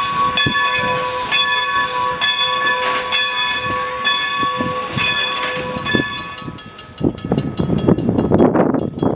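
A railroad bell ringing in steady strokes about twice a second as a steam train pulls out; after a cut about 7 s in, a grade-crossing signal bell ringing faster over a low rumble of wind.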